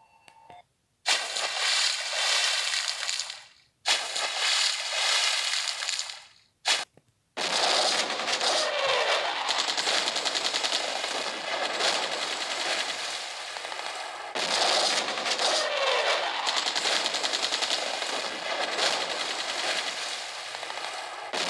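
A harsh, crackling, rapid-fire noise effect played through the SK Multi Slider SK-7400 phone's small speaker. It comes as two bursts of about two seconds, a brief blip, then one long unbroken stretch.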